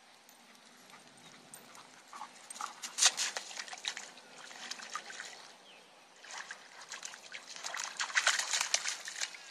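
A Dalmatian splashing in a puddle, its paws slapping and stamping the water in irregular splashes. The splashing starts about two seconds in, pauses briefly about six seconds in, then comes back thicker.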